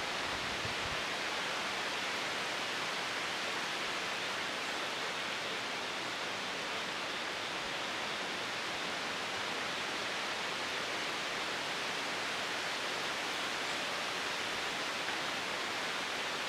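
Steady, even outdoor hiss with no distinct events: no birdsong, calls or knocks.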